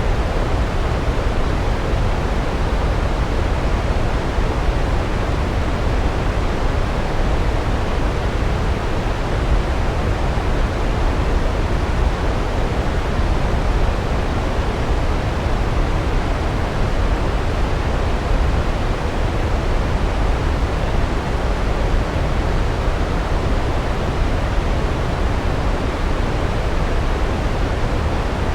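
Large waterfall heard from close, a steady low rumble of falling water with no breaks or changes.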